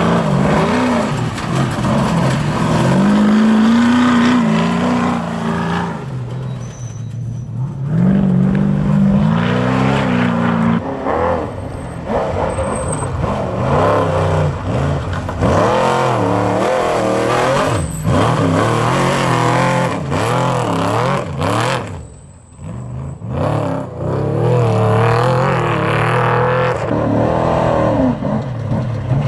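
Trophy truck engines revving hard as one desert race truck after another climbs past, the pitch rising and falling with the throttle. The sound drops off briefly about seven seconds in and again about twenty-two seconds in, between trucks.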